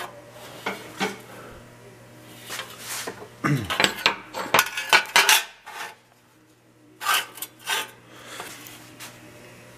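A bent sheet-steel patch piece clanking and scraping against a steel workbench top as it is picked up, turned and set down: irregular light metal knocks and rubs, busiest in the middle and again a little later.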